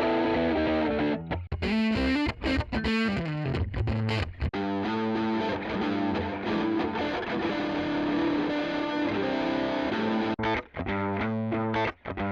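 Distorted electric guitar played through a drive preset on an IK Multimedia TONEX MAX amp-modelling pedal. It plays choppy chords, then a long held chord in the middle, then short stabbed chords near the end.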